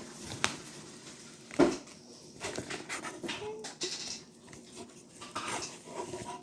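Clear glue slime being mixed and squeezed by hand as detergent activates it: sticky wet squelches and pops, with a sharp snap about a second and a half in.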